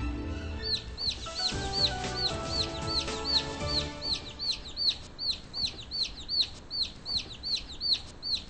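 Baby chicks peeping in a steady rhythm, about three short falling peeps a second, over a short music sting that fades out about four seconds in.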